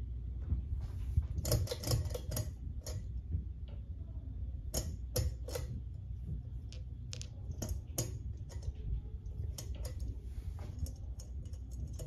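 Pull chains of a Hunter Granville ceiling fan being tugged: the pull-chain switch clicking and the metal bead chains and fobs jangling, in several clusters of sharp clicks as the fan is stepped through its speeds. Under them runs the fan's steady low hum.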